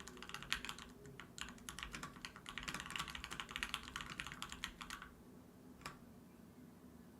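Mechanical keyboard with Banana Split switches being typed on in a quick run of keystrokes. The typing stops about five seconds in, with one more keystroke about a second later.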